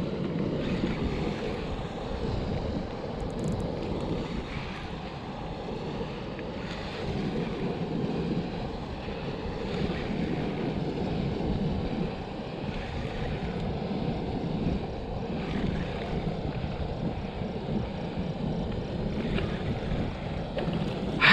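Wind noise on the microphone over a steady rush of flowing water, swelling and easing a little.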